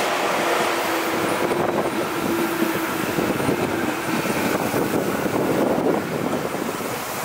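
Electric train passing, a steady rumble with a faint whine in the first half that fades out.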